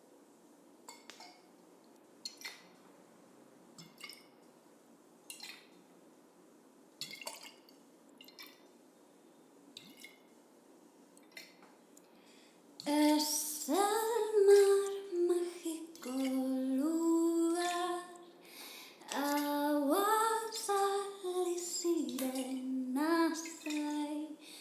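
Single water drops falling, one about every second and a half, then from about halfway a woman singing a simple, slow melody.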